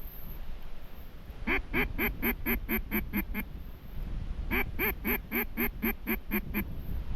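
Duck quacking in two runs of about eight quacks each, about four a second, the second run starting about three seconds after the first.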